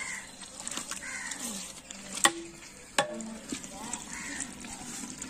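Ladle stirring and scraping chicken and masala gravy frying in a large pot, with a steady sizzle. Two sharp knocks, probably the ladle striking the pot, come a little over two and three seconds in.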